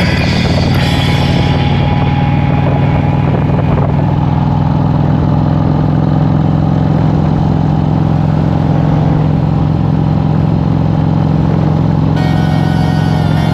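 Harley-Davidson Street Glide's V-twin engine running steadily. Stereo music fades out in the first couple of seconds and a new track comes in near the end.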